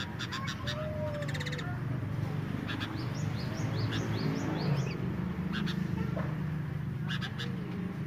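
Caged sooty-headed bulbuls (kutilang) chattering in breeding condition: sharp scolding notes, a quick rattle about two seconds in, and a run of short rising notes around the middle, then more sharp notes near the end. A steady low hum runs underneath.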